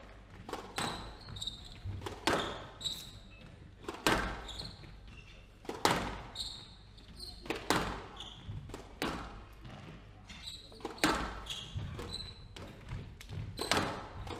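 Squash rally: the ball struck hard by rackets and cracking off the court walls, a sharp hit about every second or so, with short high squeaks of players' shoes on the wooden court floor between the hits.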